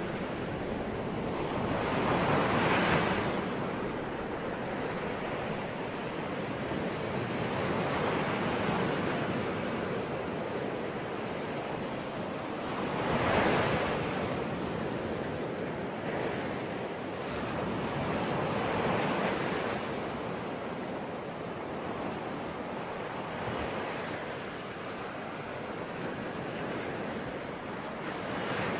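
Ocean waves breaking and washing on the shore, a steady surf hiss with several waves swelling louder, the strongest about 3 and 13 seconds in.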